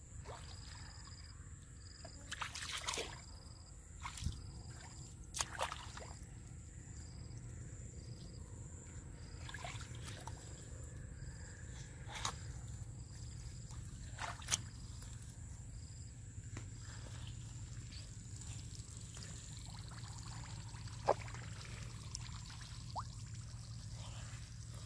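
Hands sloshing and splashing through shallow muddy water, with scattered short sharp splashes and knocks every few seconds.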